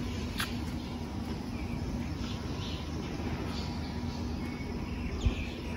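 Outdoor ambience of birds chirping here and there over a steady low rumble, with one thump about five seconds in.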